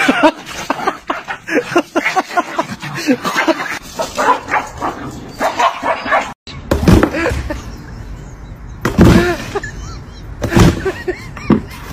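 A small puppy yapping and growling as it scuffles with a rooster. After an abrupt cut, a few louder, separate dog barks and a person's voice.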